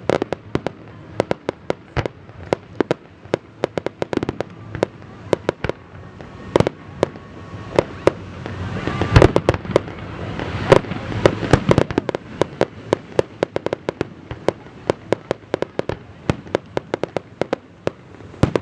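Fireworks display going off: a rapid string of sharp bangs, several a second, swelling into a louder, denser stretch of bangs and crackle about halfway through.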